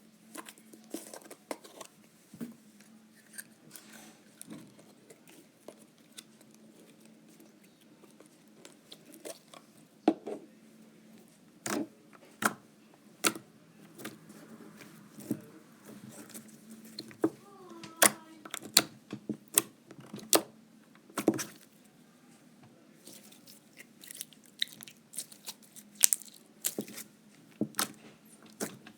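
Clear green slime being squished, pressed and stretched by hand, giving irregular sticky pops and sharp clicks, some of them loud.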